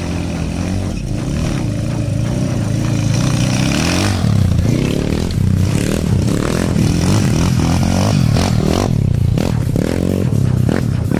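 Dirt-bike engines revving hard as trail motorcycles climb a loose dirt hill, the pitch rising and falling with each twist of the throttle. The engines grow louder about four seconds in as bikes come close.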